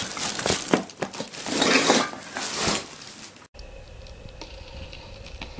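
Plastic carrier bag full of Christmas baubles rustling and crinkling as it is handled. It cuts off suddenly about three and a half seconds in, leaving a faint steady hum and a few light ticks.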